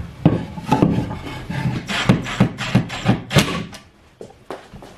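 A run of wooden knocks and taps, about three a second, from a wooden shelf and its brackets being fitted against a wall, thinning to a few scattered taps near the end.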